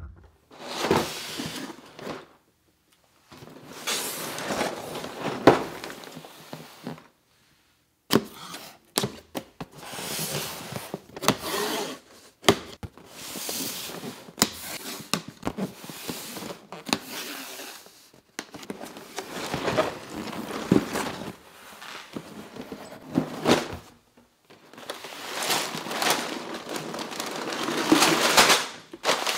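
A cardboard LEGO box being handled and opened on a table: irregular scraping, rustling and sharp knocks in bursts, with short pauses between them.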